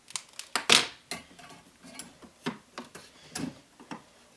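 Irregular clicks and knocks of hard parts being handled: a threaded steel rod tapping against a 3D-printed plastic mount as it is fitted by hand, about a dozen sharp knocks with the loudest just under a second in.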